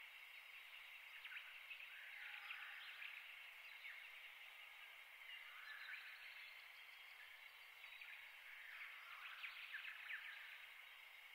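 Near silence: faint steady background noise, with a few faint scratchy bursts about a second in and again near the end.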